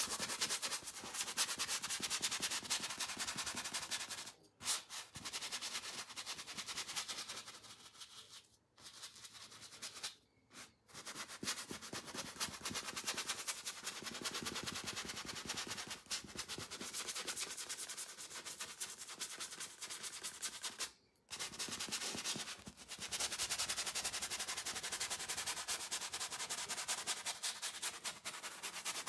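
Round bristle brush scrubbing thin paint into textured canvas in quick, scratchy strokes, lifting off for brief pauses a few times.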